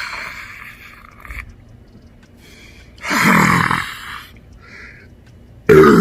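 A man's loud burp about three seconds in, lasting about a second and dropping in pitch, and a second, louder burp starting near the end. A short breathy rush of air comes at the start.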